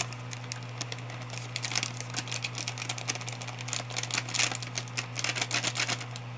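Light, irregular clicks and taps of kitchen utensils and containers being handled while batter ingredients are measured, over a steady low hum.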